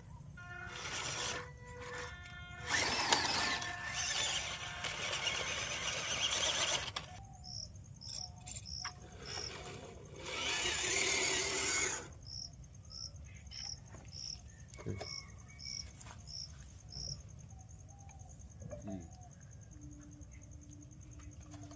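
Toy RC car running in two long bursts of motor whir and wheel noise. Between them comes a faint, regular high chirping about twice a second.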